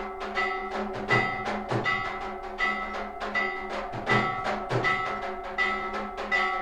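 Temple bells and drums struck in a steady rhythm for aarti, about one and a third beats a second, with the bells' tones ringing on between strikes.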